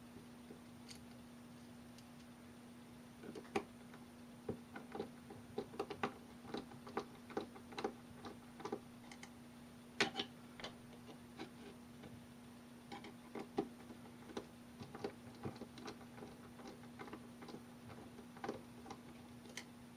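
Irregular light metallic clicks and taps of a hex key turning and seating screws on a mini lathe's rotary table assembly, over a steady low hum.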